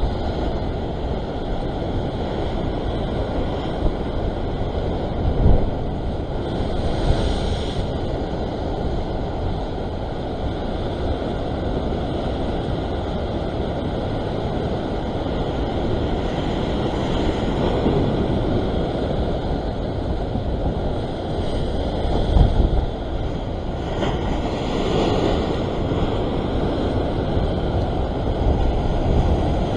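Sea surf breaking and washing over rocks, a steady rushing that swells in several surges, with wind buffeting the microphone.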